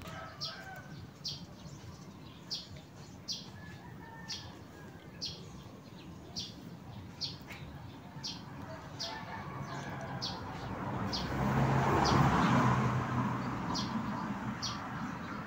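A small bird chirping over and over, short high chirps roughly once a second. About two-thirds of the way through, a rushing noise with a low hum swells up and fades away again.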